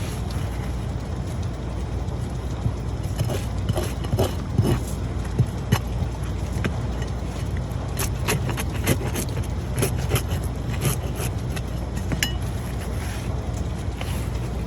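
Roof tear-off work: irregular scrapes, clicks and clinks over a steady low rumble.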